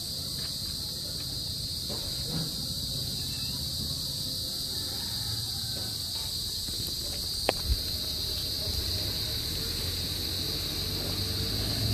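Steady high-pitched insect chorus, with two sharp clicks close together about seven and a half seconds in.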